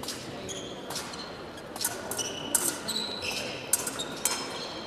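Épée blades clashing in a quick, irregular series of sharp metallic clicks, each with a short ring, mixed with fencers' feet knocking on the piste. The exchanges are busiest and loudest in the second half.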